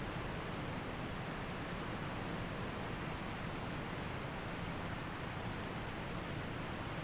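Waterfall and mountain stream rushing: a steady, even roar of falling and flowing water with no change in level.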